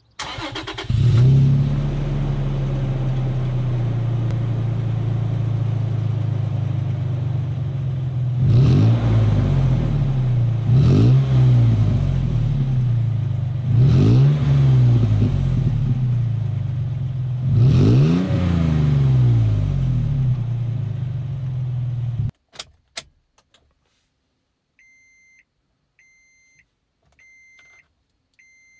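A Toyota Tacoma pickup's engine cold-started: a short crank, then it catches and runs at a steady idle at the exhaust, blipped four times so the revs rise and fall. About 22 seconds in the engine is switched off, two clicks follow, and then the dashboard chime beeps about once a second.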